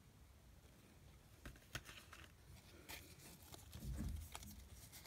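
Faint clicks and soft rustling of a stack of Pokémon trading cards being handled in the hands, with a soft low bump about four seconds in.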